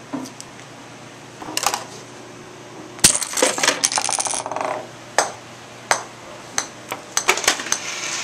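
Small hard parts of a homemade Rube Goldberg chain-reaction machine clicking and clattering. A loud snap comes about three seconds in, followed by a second or so of dense clatter, then single sharp knocks roughly every half second.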